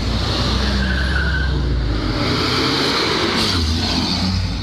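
Cars passing close by one after another at low speed, a Saab hatchback and then a Volvo estate among them, engines running over a steady rush of tyre and road noise.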